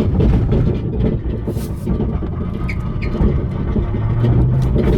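Dakota pickup rolling with its driveshaft out, heard from inside the cab: a loud, steady low rumble with rattling from underneath, a noise that doesn't sound promising.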